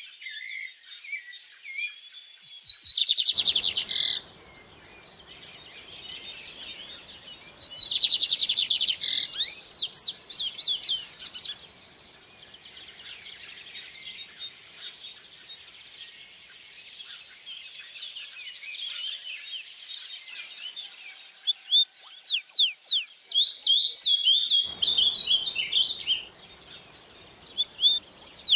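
Songbirds singing: several loud bursts of rapid, high chirps and trills a few seconds apart, with quieter twittering between. A faint rush of stream water comes and goes beneath them.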